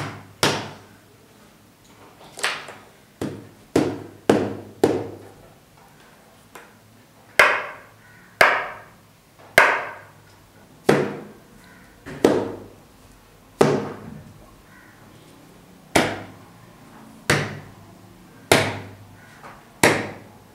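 Sharp taps on a hard surface, single strikes each ringing briefly, at uneven intervals: a few quick ones close together in the first five seconds, then about one every second or so.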